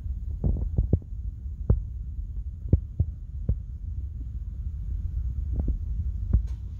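A computer mouse clicking irregularly over a low, steady hum.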